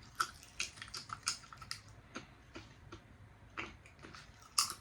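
Pop Rocks crackling and popping in a mouth: irregular small sharp pops, with a louder one near the end.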